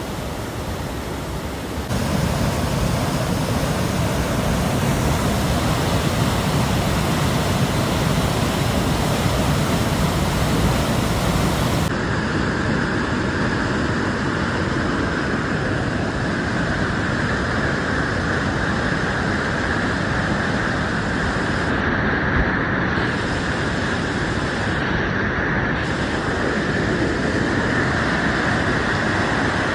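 Floodwater of a swollen creek rushing past in a loud, steady roar of water noise. The sound jumps louder about two seconds in and changes character again about twelve seconds in.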